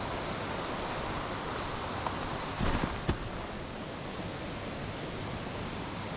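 Steady rushing of stream water, with a few brief knocks about two and a half to three seconds in.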